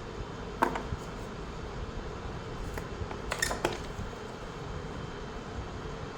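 A few sharp clicks and taps from handling a wireless mouse and its packaging: one less than a second in and a small cluster a little past the middle, over a steady background hum.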